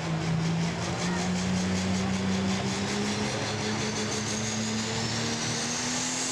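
Turbocharged diesel engine of a pulling tractor at full power, hauling a weight-transfer sled, its pitch climbing steadily as the pull goes on. A high whine rises along with it.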